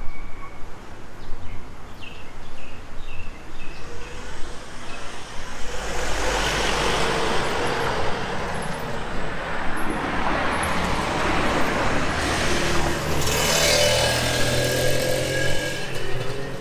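Road traffic on a city street: a vehicle passes close by, its sound swelling and then fading, and a second engine passes near the end.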